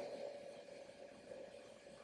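Small stepper motors turning slowly, a faint steady hum.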